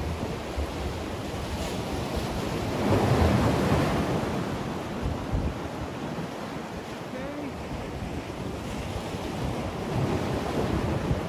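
Sea waves washing against the concrete blocks of a breakwater, with wind buffeting the microphone. The surf swells loudest about three seconds in and rises again near the end.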